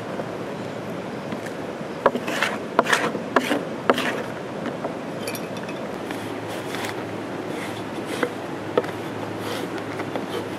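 Dry corn husks crackling and rustling as they are handled and scraped with a thin metal blade on a wooden board, with a burst of sharp crackles about two to four seconds in and a few more near the end.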